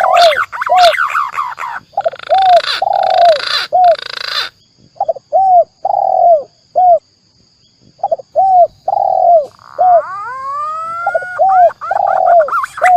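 Spotted dove and green pigeon calls mixed as a bird-lure sound: short arched coo notes repeated in quick groups, with a hiss under them from about two to four and a half seconds in. A brief pause follows, then about ten seconds in a set of rising whistled glides.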